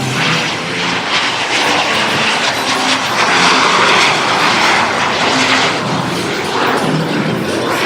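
Airplane engine noise from a passing aircraft, loud and steady, swelling about halfway through.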